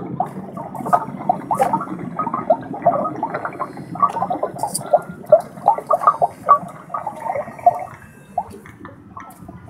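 Water trickling and dripping into the bowl of a small garden water feature: a busy, irregular run of gurgling plinks that thins out near the end.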